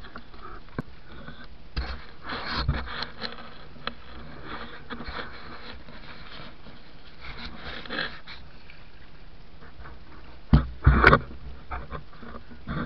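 Gear being handled in a small wooden boat: rustling and scattered knocks, with a few louder thumps about ten to eleven seconds in.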